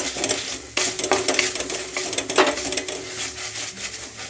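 Ginger paste sizzling as it is sautéed in a kadhai, with a utensil scraping and knocking against the pan in many quick strokes as it is stirred.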